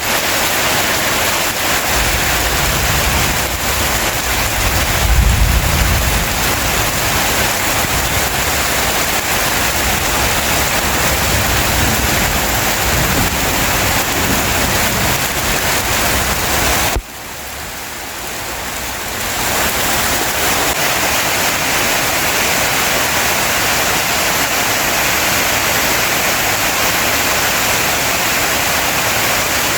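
Heavy rain falling steadily as an even hiss. A deep rumble swells about five seconds in, and around seventeen seconds the sound drops suddenly to a quieter hiss before building back up.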